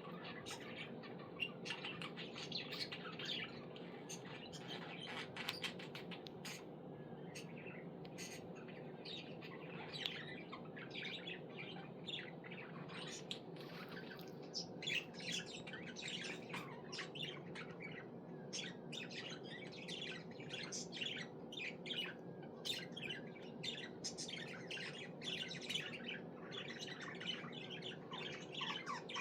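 Pet budgerigar chirping continuously in quick, short notes, over a steady low hum.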